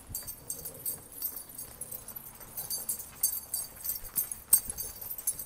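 Claws of several small dogs clicking irregularly on a hard concrete floor as they trot along, with light metallic jingling.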